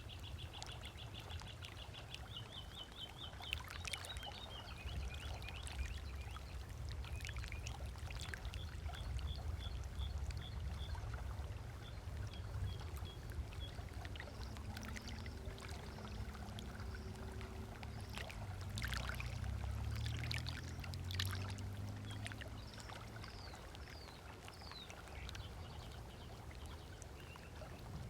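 Small waves lapping on a lakeshore beach, with short splashes and a low rumble throughout. A bird gives a rapid trill of evenly repeated notes near the start and again near the middle. A low mechanical hum, from a passing boat or monorail, swells and fades across the middle.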